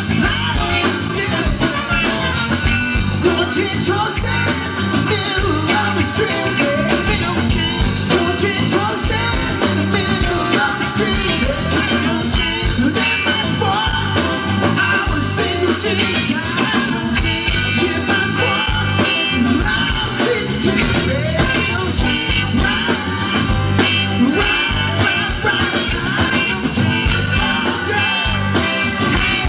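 Live blues-rock band playing: electric guitars, drums, bass and keyboard.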